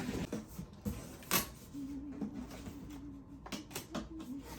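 Plastic vacuum cleaner parts being handled and fitted together, giving scattered clicks and knocks, one louder knock about a second and a half in and a quick run of clicks near the end.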